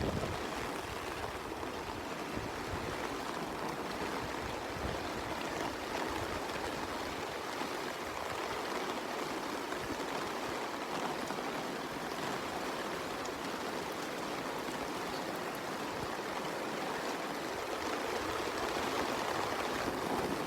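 Heavy rain falling, a steady, even rush of water with no distinct drops or breaks.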